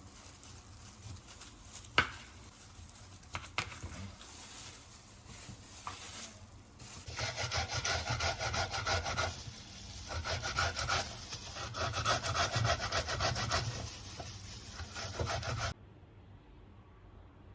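Boiled red beet being grated on a grater in quick, even rubbing strokes that stop suddenly near the end, after a couple of light knocks in the first few seconds.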